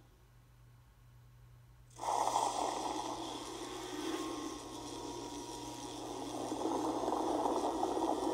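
Godzilla monster sound effect: after about two seconds of near silence with a faint low hum, a rough, breathy, noisy sound starts suddenly and keeps going, swelling a little toward the end.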